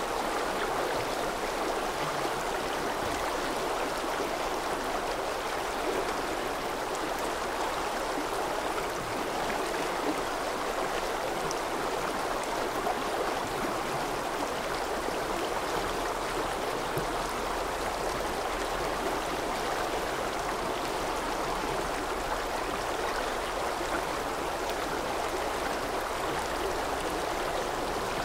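Rushing stream: a steady, unbroken rush of running water.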